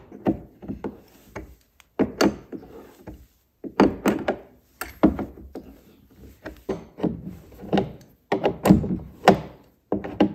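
Adjustable wrench and lock hardware knocking and clicking irregularly against the dog box's wood and aluminium side as the cabinet lock's nut is worked on, with a denser run of knocks near the end.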